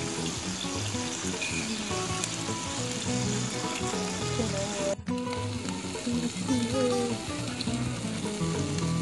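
Skewers of isaw and pork barbecue sizzling on an electric contact grill: a steady crackling hiss that breaks off briefly about five seconds in, with background music under it.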